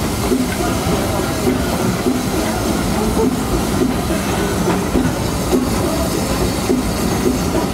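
Steady running noise of a small steam locomotive and its open passenger carriage rolling along the track, heard from the carriage behind the engine.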